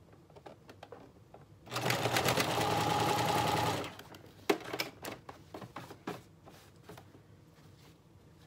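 Home sewing machine running for about two seconds, stitching elastic onto satin with a zigzag stitch, then stopping. A few scattered clicks come before and after the run as the fabric is repositioned.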